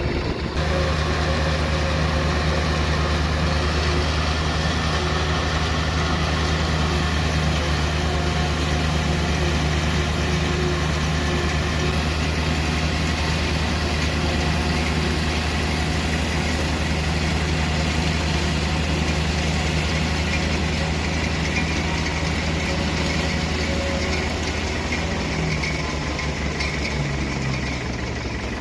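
Farm tractor engine running steadily, its pitch dropping a little near the end.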